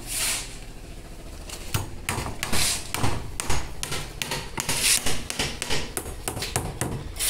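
Steel hammer driving nails into a wooden scaffold plank, a run of irregular sharp strikes that begins about two seconds in, some blows louder than others.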